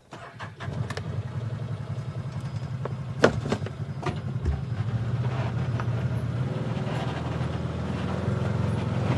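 Side-by-side UTV engine started with the key about half a second in, then running steadily as the machine drives off, getting slowly louder. A few sharp knocks or rattles come about three to four seconds in.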